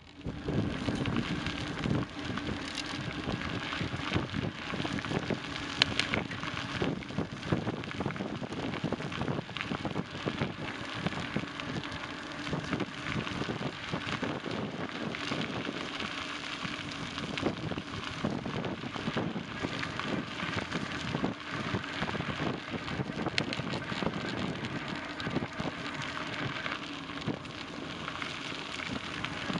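Bicycle riding along a trail, heard from on the bike: a steady crackling rolling noise full of small clicks and rattles from the tyres on the path surface.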